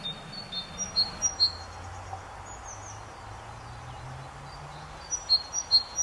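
Great tit singing its song of repeated two-note phrases, a high note then a lower one. It sings a run near the start, pauses, and starts again about five seconds in, over a steady background hiss.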